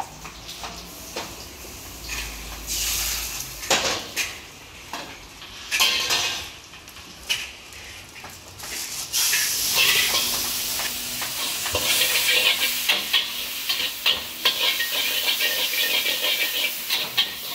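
Bowls and plates knocking and clinking a few times, then, from about nine seconds in, noodles sizzling in a hot wok with a metal spatula scraping and clanking against the pan.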